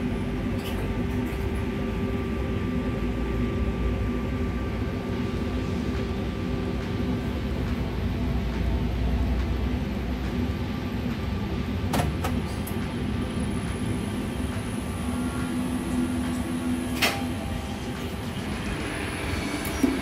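Mitsubishi elevator traction machine running on a test trip after rotary encoder work: a steady rumble with a constant hum, and sharp clicks about twelve and seventeen seconds in. The lift is running normally, without the jolt it had during travel.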